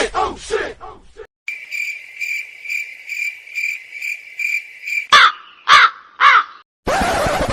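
Comedy sound effects: crickets chirping steadily for about three and a half seconds, the stock awkward-silence effect, then a crow cawing three times. A short burst of hiss follows near the end.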